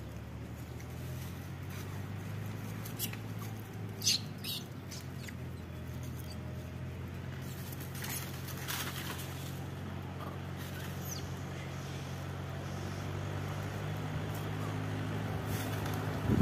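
A motor engine idling with a steady low hum. A few short high-pitched squeaks or clicks cut through it about four seconds in and again around eight to nine seconds.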